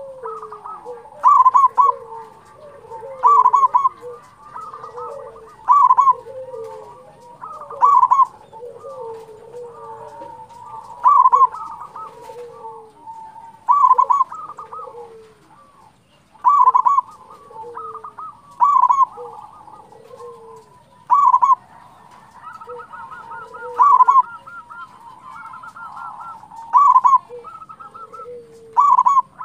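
Zebra dove (perkutut) singing: a loud, rolling cooing phrase about every two to three seconds, with softer cooing notes in between.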